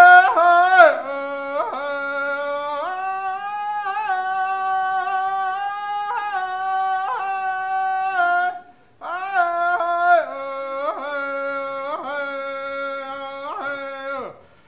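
A man singing a Native American honor song solo: loud opening phrases that fall in pitch, then long held notes, with a short pause about nine seconds in before the next falling phrase.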